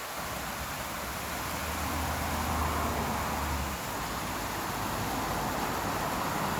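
Steady rushing hiss of a small waterfall. A low rumble builds underneath for the first few seconds and cuts off a little before the middle, typical of a vehicle on the adjacent highway.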